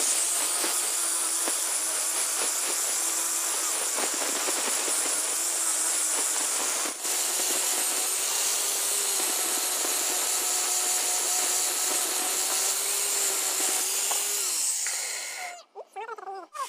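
Electric power tool working wooden planks, running steadily under load with a faint motor whine and a brief dip about halfway, then winding down near the end.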